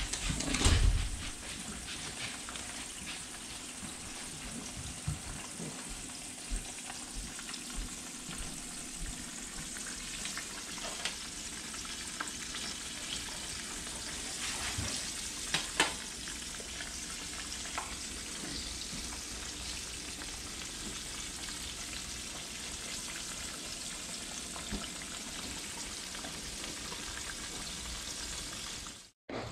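Breaded bream frying in hot grease in a pan, a steady sizzle with a few short sharp clicks.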